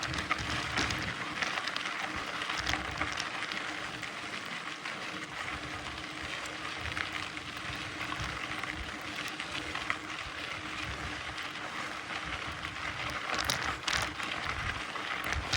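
Mountain bike rolling along a dirt trail: a steady crunch of tyres over gravel with occasional clicks and rattles, and wind rumbling on the microphone.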